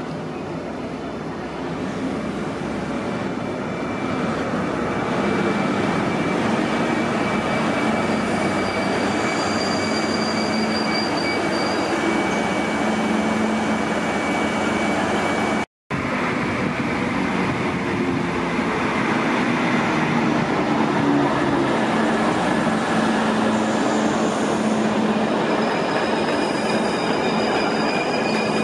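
Diesel passenger trains running at a station platform: a steady rumble of engines and steel wheels on rail, with thin high whines on top. The sound grows louder over the first few seconds. It drops out for an instant about halfway, then carries on as a second train runs.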